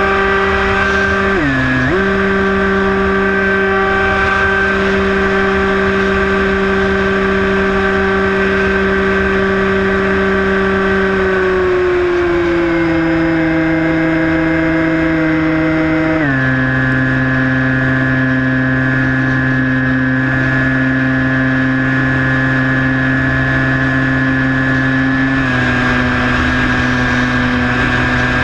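Skywalker 1680 FPV plane's electric motor and propeller, heard from on board, whining steadily. Its pitch dips briefly near the start, then steps down about halfway through and again a few seconds later, as the throttle is eased back. Wind rumbles on the microphone underneath.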